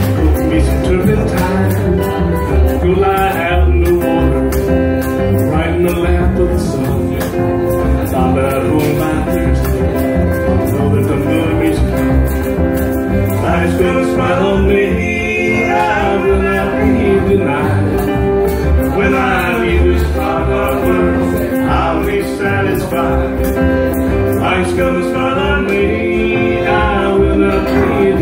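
Live acoustic band music: a strummed acoustic guitar and an upright bass keep a steady rhythm while a man sings, the voice coming in most clearly about halfway through.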